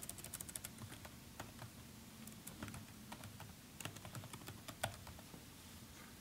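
Faint clicking of computer keyboard keys being typed: a quick run of keystrokes at the start, then scattered taps that thin out near the end.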